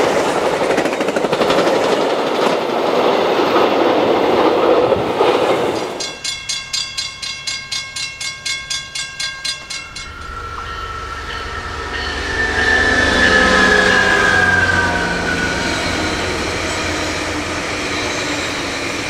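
Metra double-deck gallery cars rushing and clattering past at speed. About six seconds in, a railroad crossing bell rings rapidly, about four strokes a second. From about ten seconds a Metrolink diesel train rumbles by, and its horn sounds for a few seconds with the pitch sliding slightly down as it passes.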